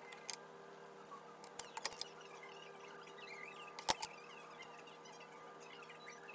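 Small metal repair tools, tweezers and precision screwdrivers, being set down and picked up on a plastic work tray: a few light clicks and taps, with the sharpest knock about four seconds in.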